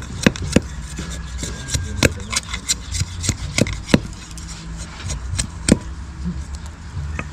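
Machete blade shaving a thin bamboo strip down into a bamboo nail: a run of short, sharp scraping strokes, irregular, about two or three a second.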